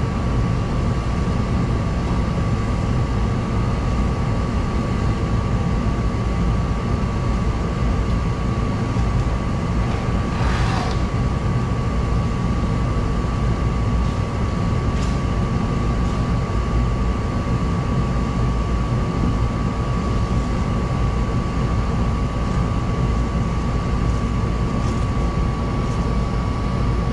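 Modine Hot Dawg gas-fired unit heater running with its burner lit while its gas pressure is set, a steady low hum with a thin steady tone above it. A short rustle or scrape comes about ten seconds in.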